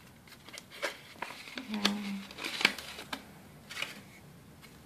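Paper rustling and crinkling as a kraft-paper sticker envelope is handled and the sticker sheets are drawn out, with scattered light taps and clicks.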